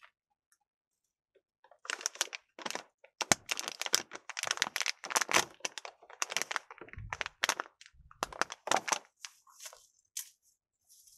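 Dense, irregular crackling and crunching as a hiker shifts in dry grass and handles his gear, with a few dull thumps. It starts about two seconds in after a near-silent moment.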